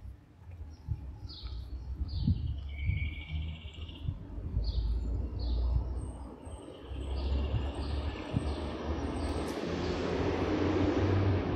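Small birds chirping, with a short buzzy trill, in the trees over street ambience. In the second half a passing vehicle's noise swells and is loudest near the end.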